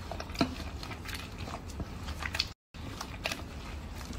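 Irregular soft knocks and clicks of a utensil working the madhrooba, a thick chicken-and-grain porridge, in a metal cooking pot as it is beaten and stirred, with a couple of sharper knocks against the pot.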